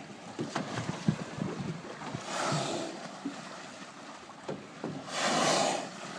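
Whales blowing as they surface beside the boat: two loud breathy whooshes about three seconds apart, over small knocks and lapping of water against the hull.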